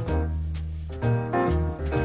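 Instrumental background music: a light jazzy tune with a bass line and piano and guitar notes.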